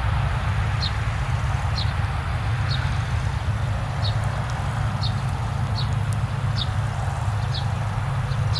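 Two Claas Lexion combine harvesters running while cutting grain: a steady low engine drone with a rushing haze of threshing noise above it. A short high chirp repeats about once a second throughout.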